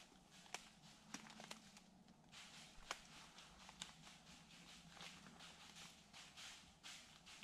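Faint footsteps crunching through thin snow and dry leaf litter, about two steps a second, with a few small sharp clicks or twig snaps in the first few seconds.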